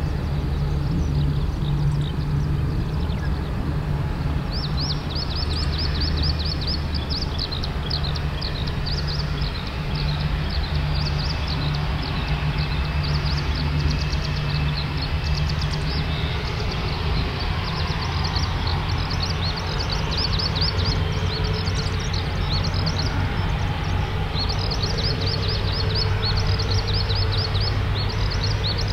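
Boeing 787-8 airliner taxiing, its Rolls-Royce Trent 1000 turbofans running at taxi power with a steady low hum that shifts in pitch about halfway through. A background chorus of rapid high chirping starts a few seconds in.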